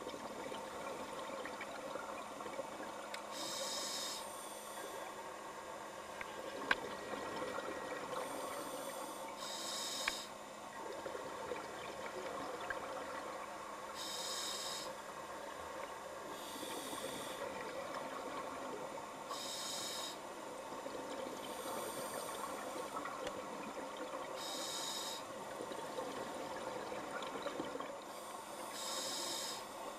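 Scuba diver breathing through a regulator underwater: a short hissing breath every two to three seconds, over a steady hum and wash of water noise.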